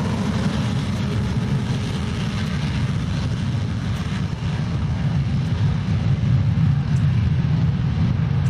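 Jet fighter engine running: a steady low rumble with a rushing hiss above it.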